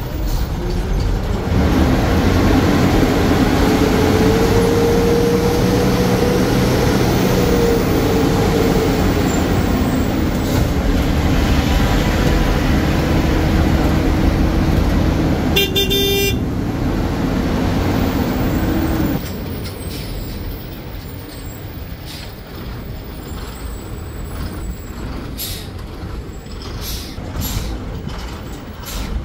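Bus's diesel engine heard from the front of the cab, running loudly, then dropping to a quieter run about 19 seconds in. A few seconds in, a horn sounds for about four seconds.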